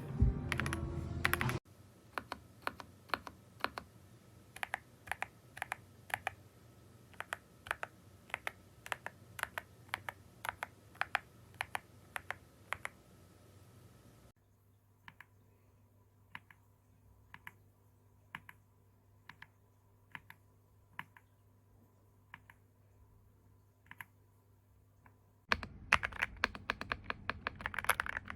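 Typing on a YUNZII X71 gasket-mounted mechanical keyboard with transparent keycaps and Crystal Ice switches: a steady stream of separate key clicks. The clicks are quieter and sparser through the middle and turn louder and faster near the end.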